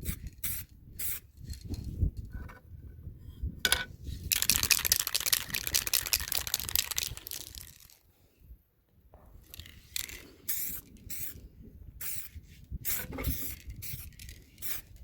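Aerosol spray can hissing in one continuous spray of about three and a half seconds, starting about four seconds in, with scattered knocks and clicks of handling before and after it.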